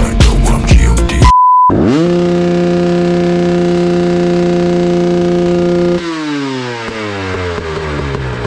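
Rap music cuts off about a second in and a short high beep sounds; then a dirt bike engine revs up quickly, holds one steady high note for about four seconds, and falls in pitch as it winds down.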